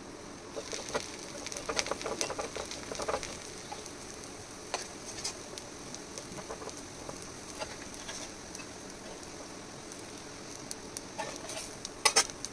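Dosa frying on a hot tawa with a steady sizzle, while a metal spatula scrapes and taps on the pan as the filling is spread and the dosa is folded. A cluster of scrapes and taps comes in the first few seconds, and sharp clicks come near the end.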